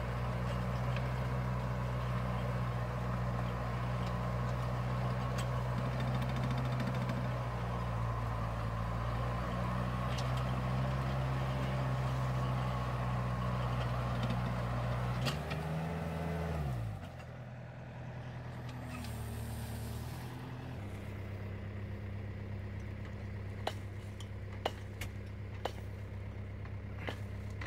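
Tractor diesel engine running steadily under load while pulling a ridge-forming plastic-mulch laying machine. About halfway through, the engine speed falls and it settles to a lower, steady idle. Near the end there are a few sharp clicks from the spring-loaded press-wheel arm being handled.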